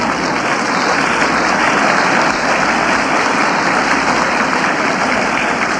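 Audience applauding steadily, easing slightly near the end.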